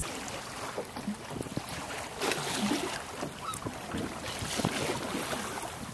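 Wind buffeting the microphone with water splashing and lapping against a small boat on choppy water, as a changing hiss with irregular splashes.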